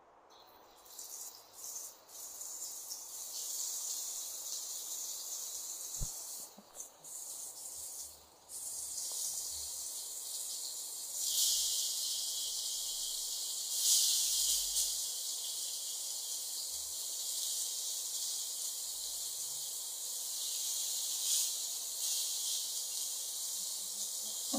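Masala-marinated fish steaks sizzling in oil on a hot flat iron tawa. The hiss sets in as the first piece goes down, swells as more pieces are laid in, and then holds steady.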